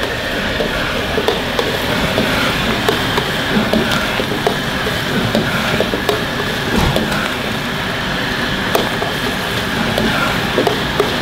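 Chopped cabbage and onion sizzling as they are stir-fried in a wok over a wok burner that runs with a steady rush, while a metal spatula scrapes and clicks against the wok.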